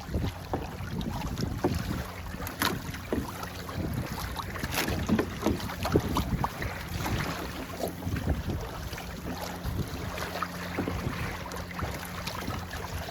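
Wind buffeting the microphone aboard a sailboat, with water splashing against the hull and many short knocks throughout, over a faint steady low hum.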